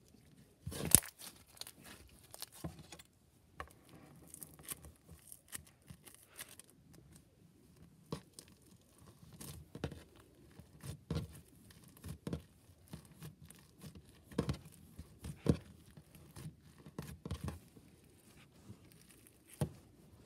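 Hands stretching, pressing and squishing green slime with orange beads worked into it, giving irregular sticky pops and crackles; the loudest pop comes about a second in.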